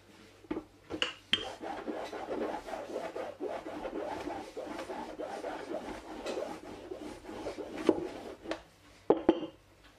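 Rolling pin rolling thin baklava dough out on a floured wooden board: a steady rubbing and rasping, with a few sharp knocks near the start and near the end.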